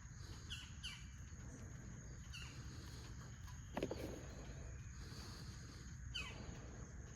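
Birds chirping outdoors: short falling chirps every second or two over a low steady rumble, with one louder, brief sound about four seconds in.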